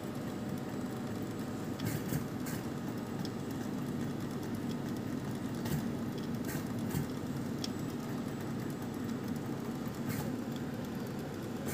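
Steady low hum of running lab equipment, with a few light clicks scattered through it.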